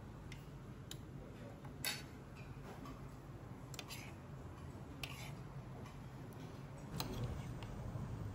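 Metal spoon and fork clinking against plates now and then, the loudest clink about two seconds in, over a steady low background hum.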